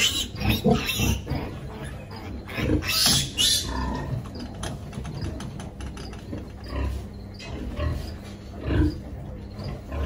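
Pigs grunting irregularly, with a few louder, higher squeals near the start and scattered short knocks.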